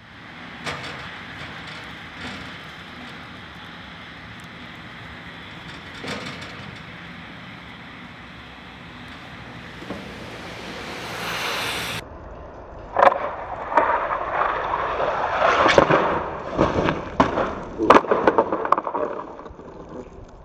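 A steady hiss with a few sharp knocks, then a cut to a run of loud clattering impacts and scraping as skis hit and slide across icy concrete in a crash.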